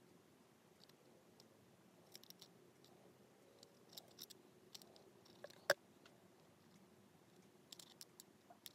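Faint scattered clicks and scratches of small parts being handled, wires and a USB plug worked with the fingers during soldering, with one sharper click a little past halfway, over quiet room tone.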